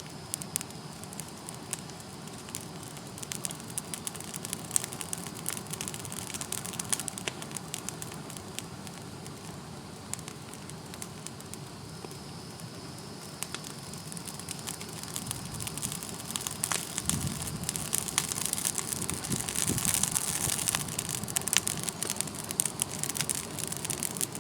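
Brush pile of oak wood, shrubs and tangled vines burning, crackling with many sharp pops. The crackling grows louder and busier a little past halfway through.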